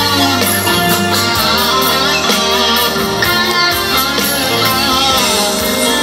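Live band playing an instrumental passage: a Stratocaster-style electric guitar plays a lead line with bent notes over bass and drums, with cymbal hits throughout.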